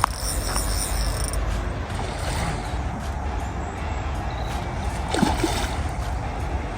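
Water splashing and sloshing as a hooked carp is played in, over a steady low rumble, with one sharp splash about five seconds in.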